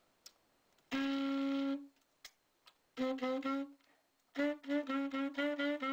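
Alto saxophone sounding B-flat, fingered as an A with the side key pressed. It plays one note held for about a second, then three short notes, then a quick string of short repeated notes, all at the same pitch.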